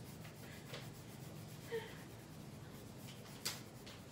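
Colored pencil scratching across paper as a drawing is shaded in, with a few light ticks and a sharper one about three and a half seconds in.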